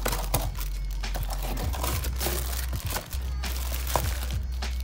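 Clear plastic bags wrapped around bike parts crinkling and rustling as hands rummage through a cardboard box, in many short irregular crackles over a steady low hum.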